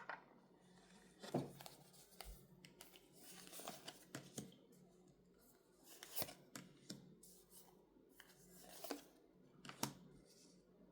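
Quiet rustling and soft taps of a deck of fortune-telling cards being handled, shuffled and laid out, in short irregular bursts.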